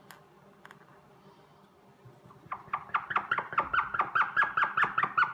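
Microfiber towel rubbed rapidly back and forth on a clear plastic gauge lens, squeaking in quick strokes about five times a second from about halfway in, each squeak sliding down in pitch. A few light clicks of handling come before it.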